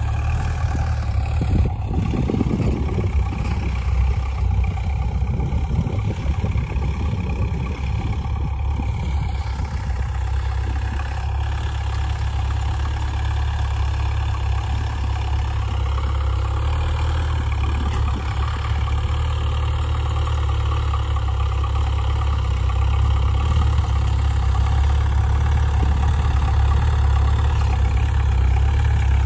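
Diesel engines of Dongfeng mini tractors running steadily while working a field, a continuous deep engine drone. It grows a little louder near the end as one tractor comes closer.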